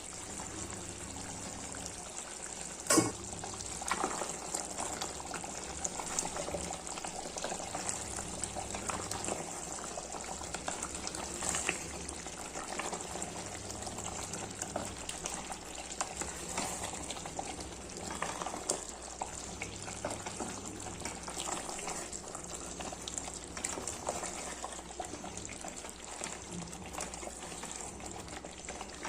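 Mutton curry bubbling and sizzling steadily over high heat, with many small crackles and one sharp knock about three seconds in.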